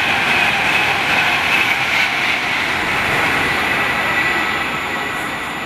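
Passenger train running through the station at speed, a steady rushing noise of wheels on rail that fades away over the last couple of seconds as it recedes.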